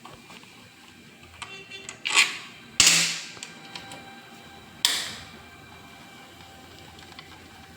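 Metal tools and parts handled during a motorcycle service: a short quick rattle, then two sharp knocks about two seconds apart, each ringing out briefly, the first the loudest.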